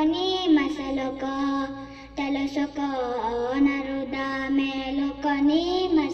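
A female voice singing a Telugu tarana: long held notes with melodic turns that rise and fall, in a chant-like style.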